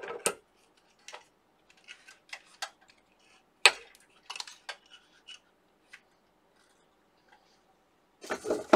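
Scattered clicks and light knocks of a graphics card being freed from the preheater's board-holder clamps and lifted out, the sharpest click nearly four seconds in.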